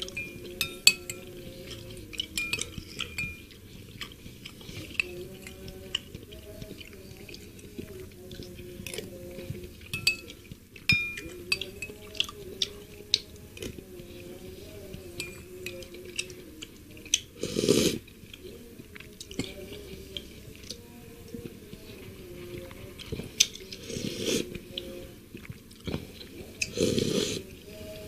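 A metal spoon clinking and scraping against a bowl while someone eats seblak, a spicy soup, with chewing. Three louder slurps of the broth come about two-thirds of the way in and near the end.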